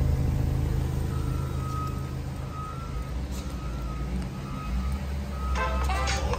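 2013 Chrysler 200's 2.4-litre four-cylinder engine idling, a steady low exhaust drone at the tailpipe. A faint high beep repeats through the middle, and music comes in near the end.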